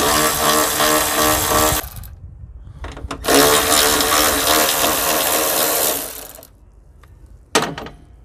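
Cordless electric ratchet running twice, about two seconds and then about three seconds, as a steady motor whine, backing out the 12 mm bolts that hold the Prius inverter. A short knock follows near the end.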